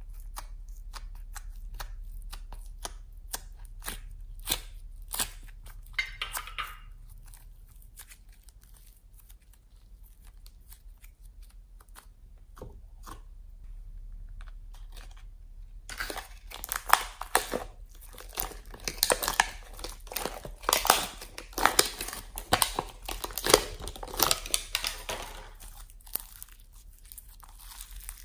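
Sticky slime clicking and crackling as it is handled. Scattered clicks at first, then from about halfway a dense, louder run of wet crackles and pops as glitter slime is pulled out of a plastic mould and stretched.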